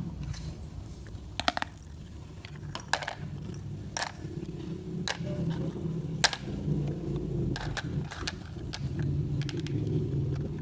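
Toy kitchen pieces and play food being handled and cut, giving about seven sharp clicks and taps at irregular intervals over a low steady hum.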